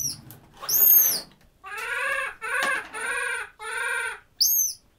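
Infant vervet monkey calling: short, high, falling chirps about a second apart, then a run of four longer, wavering cries, then one more chirp near the end. These are the distress calls of a frightened, newly orphaned baby.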